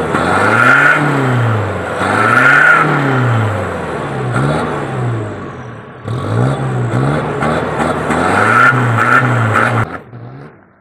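Ford pickup's turbocharged engine with an aftermarket exhaust, revved again and again, the pitch rising and falling about eight times with a high whine at the top of several revs. The sound cuts off suddenly near the end.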